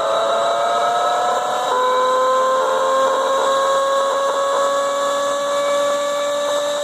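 Leybold Turbovac 150CSV turbomolecular pump running with a loud whine that climbs slowly in pitch, drops abruptly about two seconds in, then climbs again, over a steady high tone. A rough, scratchy noise runs through the whine: the pump's bearings are bad.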